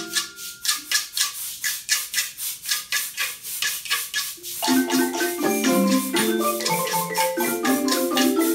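Wooden Orff xylophones played by an ensemble with mallets. For the first four and a half seconds the pitched notes drop away, leaving only a steady rhythm of short dry percussion strokes, about four a second; then the xylophones come back in with a full pattern of bass and melody notes.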